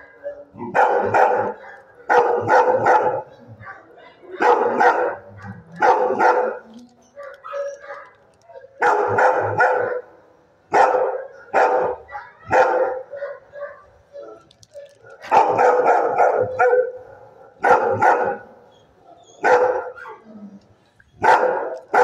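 Dog barking in a shelter kennel: loud, short barks in bunches of two or three, repeating every second or two throughout.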